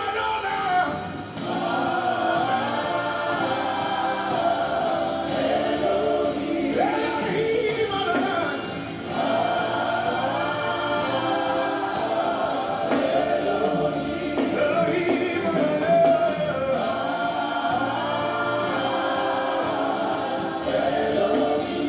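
Gospel worship music with voices singing together, a sustained worship song without clear words.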